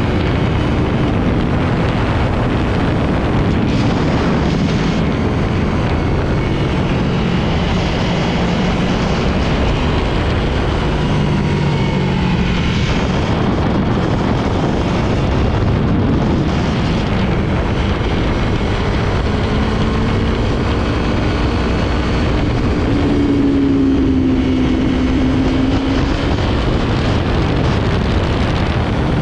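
Aprilia sport motorcycle riding at speed on a wet road: the engine runs with its pitch drifting up and down, under a steady, loud rush of wind over the microphone.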